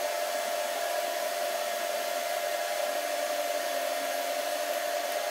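TIG welding arc burning steadily as a stainless steel V-band is fusion welded to mild steel without filler: an even hiss with a constant mid-pitched tone.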